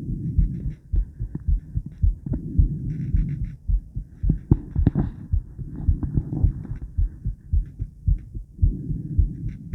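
A human heartbeat heard through a chest microphone: a steady run of low, dull thumps. A rushing noise swells and fades every few seconds beneath it.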